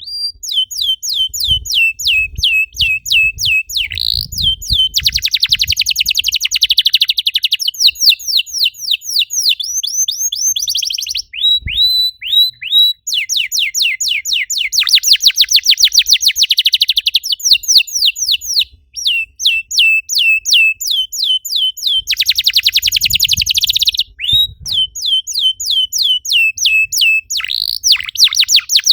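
Canary singing a long song in tours: runs of quick, high, downward-sweeping whistled notes alternate with fast rolling trills (the 'cor dor' style). Brief pauses about 12, 19 and 24 seconds in.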